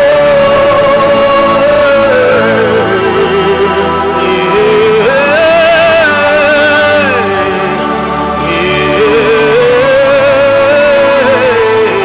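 Slow worship music: a singing voice holds long, wavering notes that alternate between a higher and a lower pitch every few seconds, over a sustained low keyboard pad.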